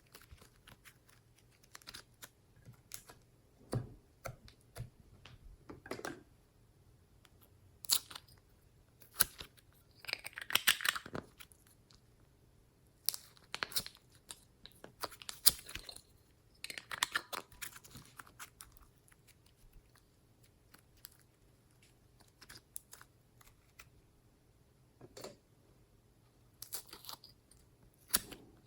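Glossy slime being squished, stretched and pressed by hand, giving irregular sticky clicks, pops and short crackly bursts, with busier stretches near the middle.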